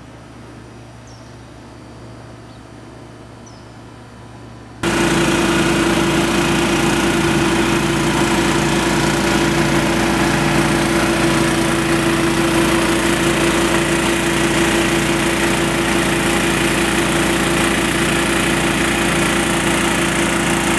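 Faint outdoor ambience with a few short chirps, then about five seconds in a small engine starts sounding abruptly and runs loud and steady at a constant pitch.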